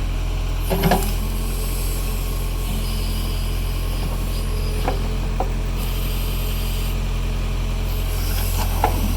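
Backhoe engine running steadily with a low drone while it digs, with a few short clunks from the working machine, the loudest about a second in and another near the end.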